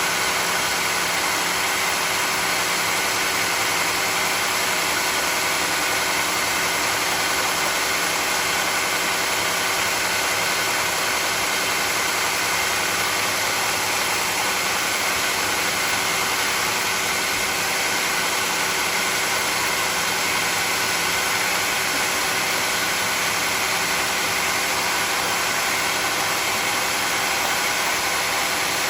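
Sawmill running steadily: a constant machine drone with a steady high whine, holding the same pitch and level throughout.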